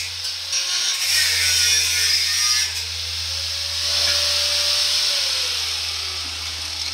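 Handheld angle grinder cutting through a steel truck frame rail with a high hissing grind. It breaks through and runs free with a steady whine, then winds down in pitch over the last couple of seconds as it is switched off.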